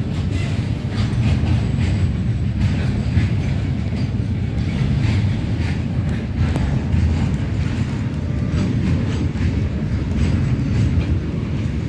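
Indian Railways goods train of open-top freight wagons rolling past: a steady low rumble of wheels on rail, with frequent clicks and clanks as the wheels run over the rail joints.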